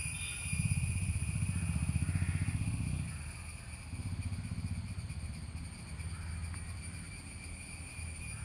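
A low, pulsing engine rumble, loudest from about half a second to three seconds in and then quieter, with a steady high thin drone behind it.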